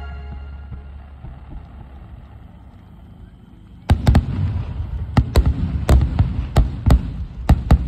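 A low rumble eases off. About four seconds in, a rapid barrage of aerial firework shells starts bursting, with sharp loud bangs about three a second and a rumble between them.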